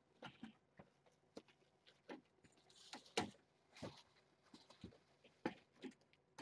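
Disposable absorbent pad rustling and crinkling as hands smooth it flat and tuck it in: a string of soft, irregular crackles, loudest just after three seconds in and again about five and a half seconds in.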